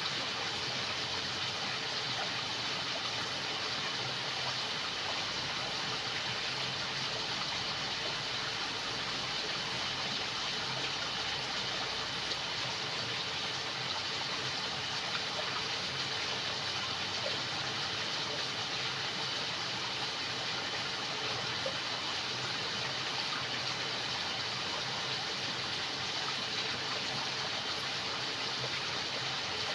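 Jungle night ambience: steady running water under a constant chorus of crickets and frogs, unchanging throughout.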